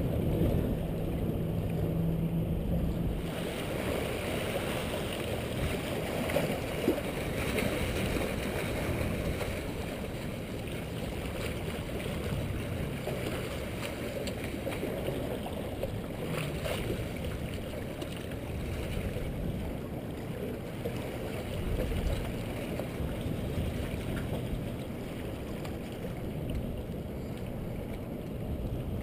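Steady low rumble of wind on the microphone mixed with sea water washing against jetty rocks.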